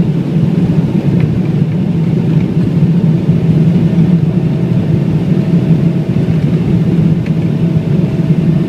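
Boeing 777-300ER's GE90-115B turbofan engines running, a loud steady rumble with a low hum.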